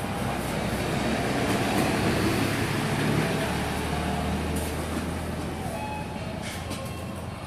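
A continuous low mechanical rumble with a steady low drone underneath, swelling for the first few seconds and then slowly easing off.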